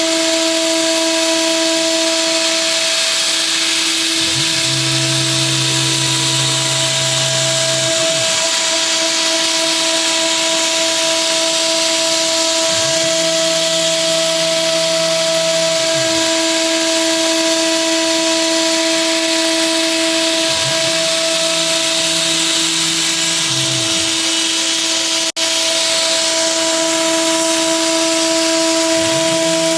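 DIY CNC router milling aluminium: the spindle runs with a steady whine over a constant hiss, while the axis motors hum in stretches of a few seconds, each starting and stopping with a short glide in pitch. The sound breaks off for a split second about 25 seconds in.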